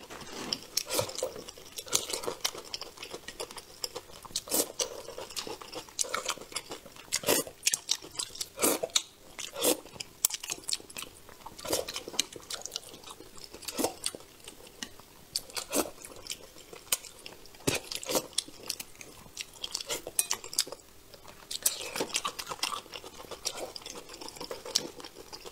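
Chopsticks clicking and tapping against a ceramic bowl while picking apart a braised crucian carp in sauce. The sharp clicks come irregularly, several a second, with some chewing between them.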